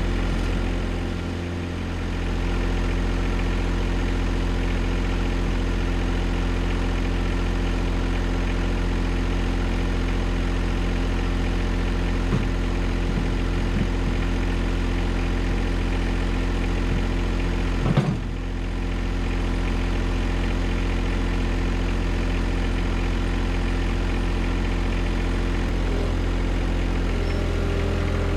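John Deere 1025R sub-compact tractor's three-cylinder diesel engine running steadily, with a single knock about two-thirds of the way through.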